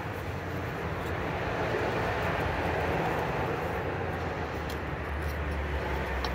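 Passing road traffic: a steady rumble that swells gently and eases again over a few seconds.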